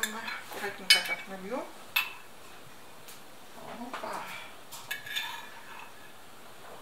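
Metal spoon clinking against a glass jar in a few sharp, separate knocks, the loudest about a second and two seconds in.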